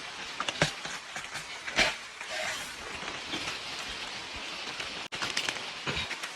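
Rain falling on bamboo leaves: a steady patter with scattered louder drop taps on the leaves.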